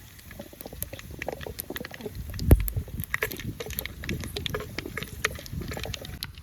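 Whole spices (cinnamon, cloves, cardamom) crackling and spitting in hot oil, a dense run of small irregular pops, with one heavier thump about two and a half seconds in.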